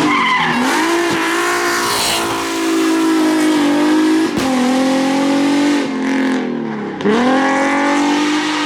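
A rally car's engine under hard throttle, pitch climbing with a sharp drop from a gearshift about four seconds in. It eases off around six seconds in, then pulls hard again near the end.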